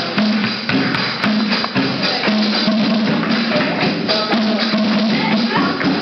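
Sound-art music: a dense rattling, jingling texture of quick scratchy strokes, over a low droning tone that breaks off and returns every second or so.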